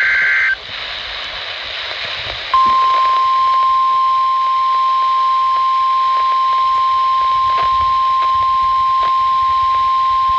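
NOAA Weather Radio alert signalling: a buzzing SAME digital header burst cuts off about half a second in, then after about two seconds of radio hiss the steady 1050 Hz warning alarm tone starts and holds at one pitch. The tone marks a warning-level alert about to be read.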